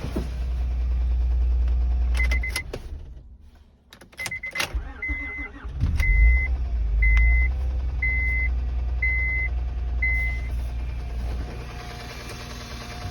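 A 2007 Honda Accord V6 idling is switched off about two seconds in, then cranked and restarted a few seconds later and settles back to a steady idle. Dash chimes beep as the key is turned, then about once a second for several seconds after the restart. The owner is chasing a knocking noise in this engine and has ruled out the timing belt tensioner.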